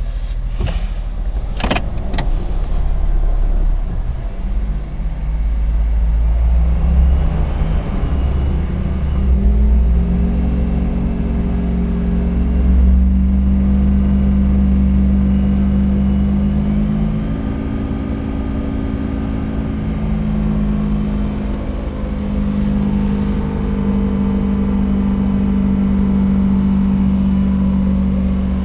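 Honda Life JB1 driving with a continuous low drone from a worn wheel hub bearing, its pitch shifting up and down with road speed. A few sharp clicks near the start.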